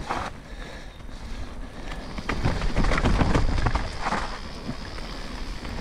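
Ghost Riot Enduro full-suspension mountain bike descending a wet dirt singletrack: tyres rolling over mud and roots with a low rumble, scattered knocks from the bike over bumps, and wind on the helmet-mounted microphone. It gets louder and rougher from about two seconds in.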